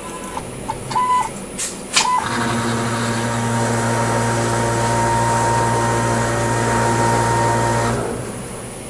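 CNC plasma table's gantry and torch-height drive motors running through a dry-run G-code program with no arc: a few sharp clicks in the first two seconds, then a steady motor hum and whine from about two seconds in until about eight seconds, when it dies down.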